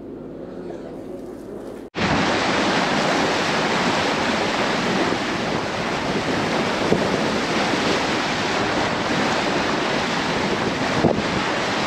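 A boat engine hums low and steady for about two seconds, then the sound cuts abruptly to a loud, steady rush of wind and sea water, with wind buffeting the microphone.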